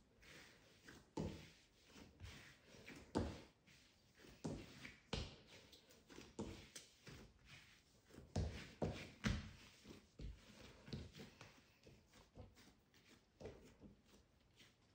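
Soft, irregular thuds and pats of hands folding and pressing a ball of yeast bread dough against a silicone baking mat while shaping it, with a cluster of firmer presses around the middle.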